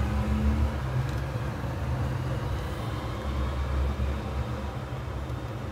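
A small motor running with a steady low hum.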